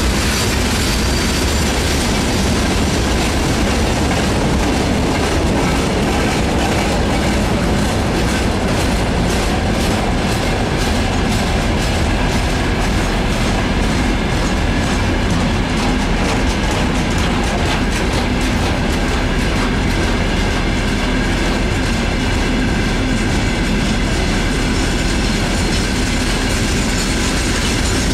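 Freight train wagons, boxcars then tank cars, rolling past close by: a steady, loud rumble of steel wheels on the rails with the clickety-clack of wheels over rail joints.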